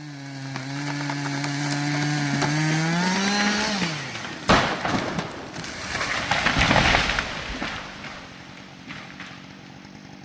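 Chainsaw running steadily under load, revving higher about three and a half seconds in and then dropping off. A sudden loud crack follows, then several seconds of crashing and breaking, as a felled tree comes down. The saw is left idling faintly at the end.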